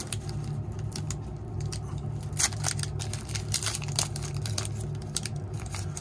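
Foil trading-card pack wrapper crinkling and tearing as it is ripped open and peeled off the cards by hand, a run of irregular crackles over a low steady hum.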